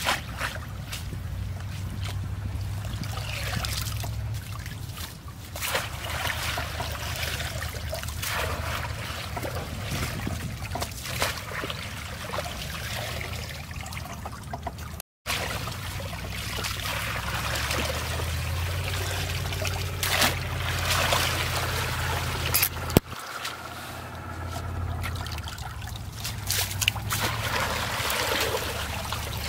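Muddy water splashing and trickling as a woven bamboo fish basket is worked through a shallow stream pool and lifted, with water running out through its weave. Irregular splashes come and go, and there is one sharp click past the middle.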